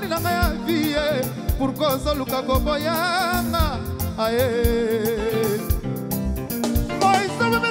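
Music playing: a singing voice with a wavering, vibrato-laden melody over a steady drum beat.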